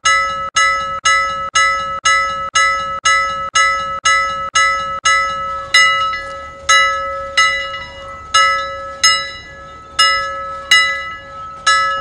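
Timer's time-up bell ringing in repeated strikes of one pitch, about two a second, turning slower and uneven about halfway through: the signal that the countdown has reached zero.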